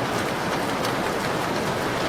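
Steady rain on a window pane, an even hiss with faint scattered drop ticks.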